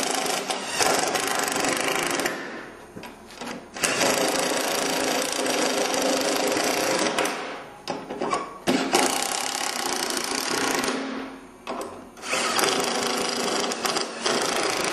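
Cordless drill driving long screws through a lifting plate into a SIPS roof panel's wood sheathing. The motor runs in four bursts of two to three seconds each, with short pauses between screws.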